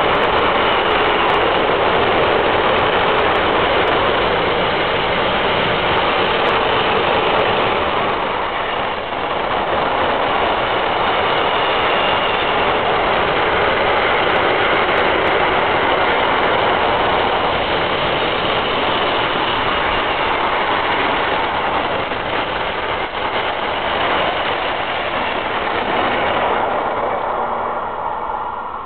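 Long train of empty two-deck car-transporter wagons rolling past: a steady rushing clatter of steel wheels on the rails, which drops away near the end as the last wagon clears.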